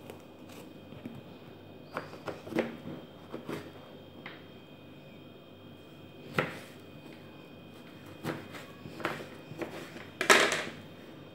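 Kitchen knife cutting an aubergine on a plastic cutting board: irregular knocks of the blade going through the flesh onto the board, the loudest near the end.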